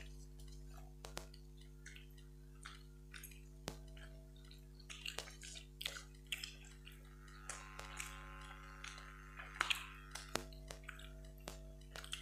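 Quiet eating sounds: scattered small clicks and wet smacks of fingers mixing rice on metal plates and of mouths chewing, over a steady low hum.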